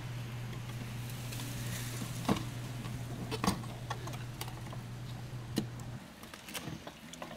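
Light clicks and knocks of a plastic fuel pump and sending unit module being lifted out through the fuel tank's opening, three of them sharper than the rest. A low steady hum runs underneath and cuts off about six seconds in.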